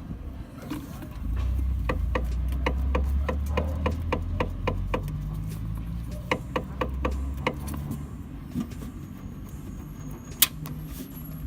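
Suspension of a 2019 Toyota Etios X Plus sedan knocking in a rapid series of short clicks, about three or four a second, over a low road rumble, with one louder sharp click near the end. It is the suspension noise that the dealer dismissed as a characteristic of the car.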